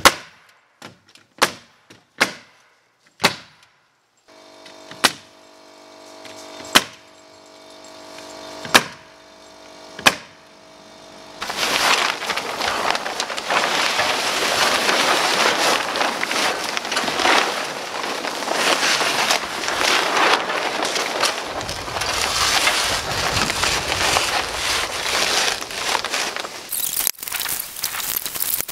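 Nail gun firing nails into OSB wall sheathing: eight sharp shots one to two seconds apart over the first ten seconds, with a steady hum under them from about four seconds in. From about eleven seconds a loud, even rushing noise takes over.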